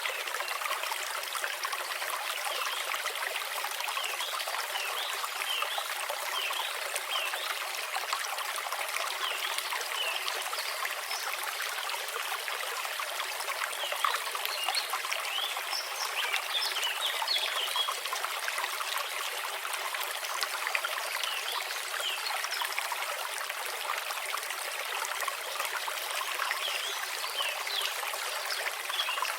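Babbling brook: water trickling and bubbling steadily, a constant light rush with many small bright plinking gurgles and no deep rumble.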